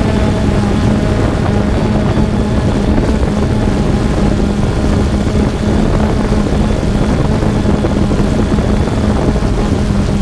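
3DR Solo quadcopter's electric motors and propellers whirring steadily in flight, a constant hum over rushing noise, heard through a GoPro mounted on the drone itself.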